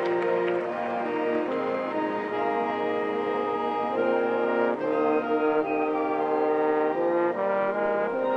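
High school marching band's brass section playing slow, sustained chords that change every second or so.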